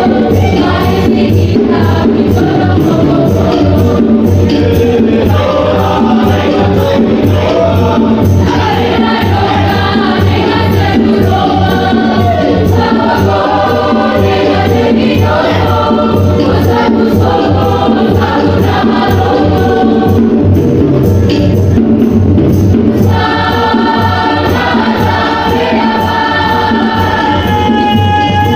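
Mixed choir singing in parts over a steady beat, the voices moving through the melody and settling onto a long held chord over the last few seconds.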